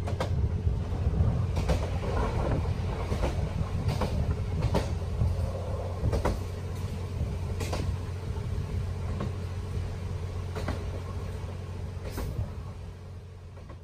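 Twilight Express Mizukaze train running on its track: a steady low rumble with a regular wheel click over the rail joints about every second and a half, fading out near the end.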